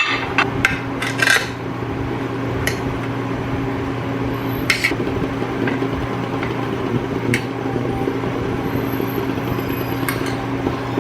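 Metal utensils clinking against dishes several times, with a cluster in the first second and a half and then single clinks every couple of seconds, over a steady electric appliance hum.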